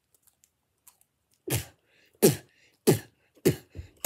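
A child's voice making a string of short, forceful vocal noises, each falling in pitch, about one every two-thirds of a second from about a second and a half in.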